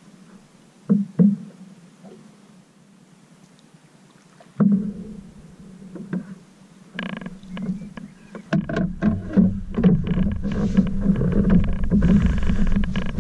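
Paddle knocks against the hull of an Old Town Saranac 146 canoe, a couple of sharp knocks in the quiet first half. From about two-thirds of the way in, a louder run of knocking, scraping and rumbling as the paddler shifts his weight and moves forward in the canoe.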